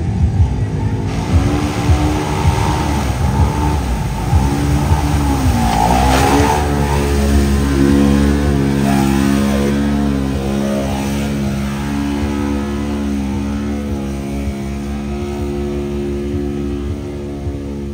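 Side-by-side UTV engine revving up and down, then held at steady high revs as the machine churns through a deep mud bog, with mud and water spraying.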